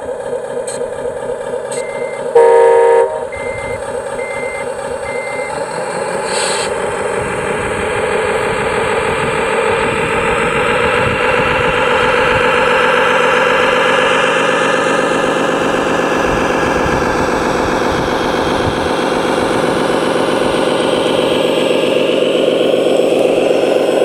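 RC Caterpillar 777D dump truck model with an electronic sound unit: a diesel-style engine sound that rises in revs and gets louder a few seconds in. A loud horn blast comes about two and a half seconds in, and reversing beeps sound about once a second in the first few seconds.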